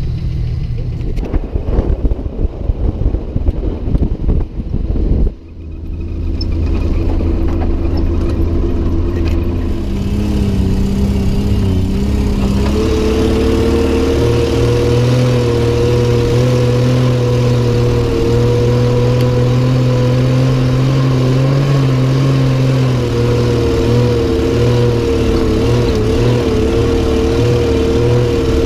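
Truck engine running while driving. The first five seconds are irregular rough bursts of noise. After that comes a steady engine note that wavers a little in pitch.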